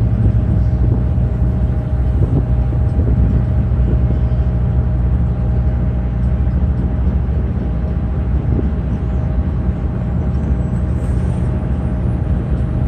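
Freight train of loaded flatcars rolling past at a steady speed, a continuous low rumble of wheels on the rails.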